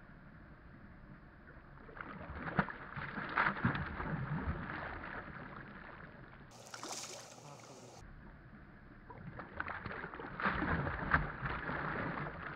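Water splashing and churning as a largemouth bass strikes a topwater frog lure at the surface, in two bouts: about two seconds in, and again from about nine seconds in.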